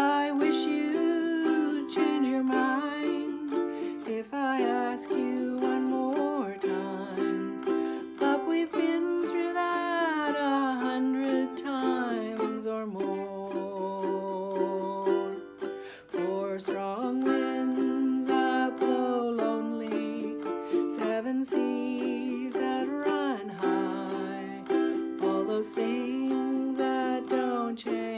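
Ukulele strummed in a steady rhythm as accompaniment, with a voice singing along in long, gliding phrases.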